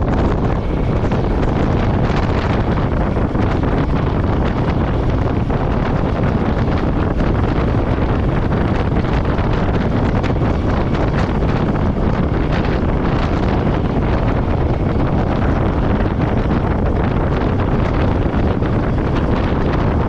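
Steady wind rush over the microphone of a camera on a moving motorcycle, with a Royal Enfield Meteor 350's single-cylinder engine running evenly underneath at cruising speed.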